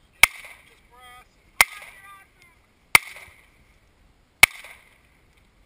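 Four handgun shots fired at a steady pace, about one every one and a half seconds, each followed by a short echo.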